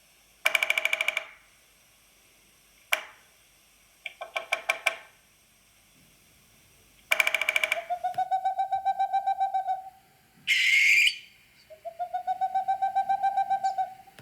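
Recorded bird calls: several short rapid trills in the first half, then two long pulsed calls of about two seconds each, with a harsh burst between them.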